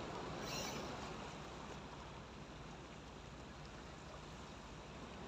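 Steady wash of the sea against a rocky breakwater, with a brief high hiss about half a second in.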